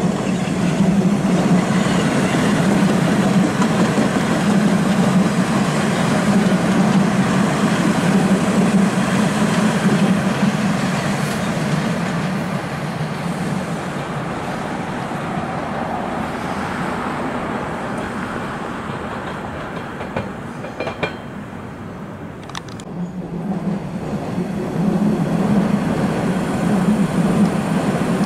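TTC Line 1 subway train running on open track: a steady rumble of wheels on rails that eases off, with a few sharp clicks about three-quarters of the way through, then swells again near the end as a train passes close by.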